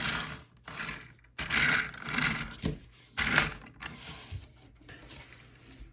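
A hard plastic action figure being handled: scattered clicks and a few short scraping rustles of plastic parts, the loudest about one and a half seconds and three seconds in.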